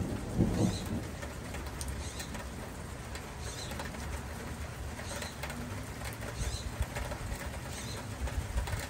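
Birds calling, with short high chirps repeating every second or so over a steady low rumble.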